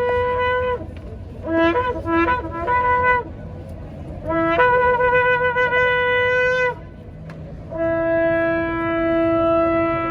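A shofar being blown: a long blast ending about a second in, then a run of short broken notes, then two more long steady blasts, each one jumping up in pitch as it starts.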